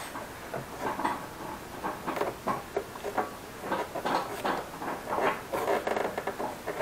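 Hands unwrapping cloth harness tape from the third brake light's wiring to expose the wires: irregular rustling and scratching.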